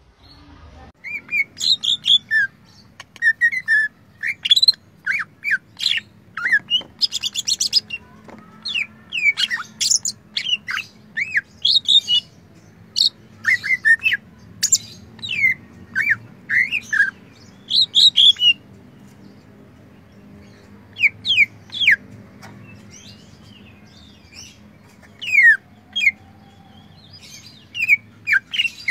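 A caged male green leafbird (cucak ijo) singing a varied string of sharp chirps and slurred whistles, with a fast rattling trill about seven seconds in and a few short pauses. The song is stuffed with phrases copied from other birds ("isian").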